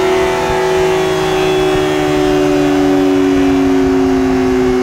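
Yamaha R6 (RJ11) inline-four engine running at high revs on a chassis dyno, its pitch sinking slowly as the revs come down, with a steady whine alongside. The engine, fitted with new valves, runs without the ticking it had before the repair.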